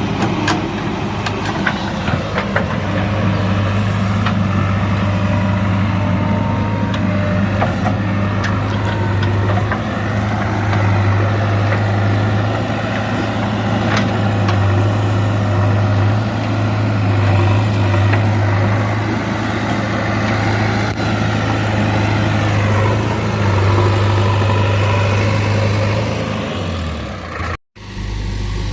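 Heavy diesel engine of earthmoving machinery running steadily, its note rising and falling slightly a few times, with scattered clicks and knocks in the first few seconds. The sound cuts out suddenly for a moment near the end, then a steady engine hum resumes.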